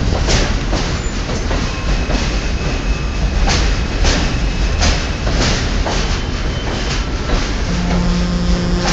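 R160A subway train pulling out of the station and passing close alongside: a loud steady rumble, with the wheels clacking sharply over rail joints about every half second. A steady low hum comes in near the end.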